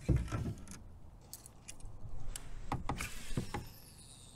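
Light clicks, clinks and knocks of fishing gear and fittings being handled aboard a kayak: a knock at the start, then a scattered run of sharp clicks. A faint thin whine falls in pitch near the end.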